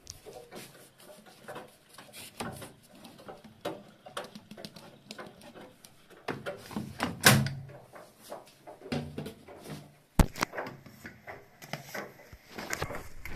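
Household handling noises at a washing machine: scattered clicks, knocks and rustles as the detergent drawer and powder packets are handled, with a louder thump about seven seconds in and a sharp knock about ten seconds in.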